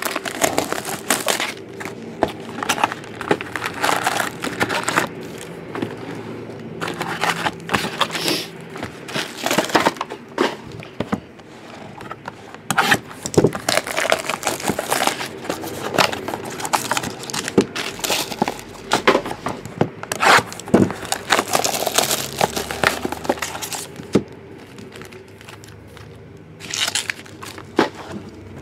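Plastic wrapping and cardboard packaging of sealed trading-card boxes and packs crinkling, crackling and tearing in an irregular run of short rustles as they are opened by hand.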